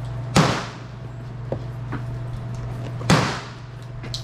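Two gunshots about two and a half seconds apart, each a sharp crack with an echoing tail, with two faint clicks between them.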